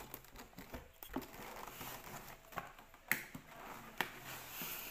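Handling noises: a few light knocks and clicks, with faint rustling between them, as a cardboard box is moved about on a wooden tabletop next to a small RC helicopter.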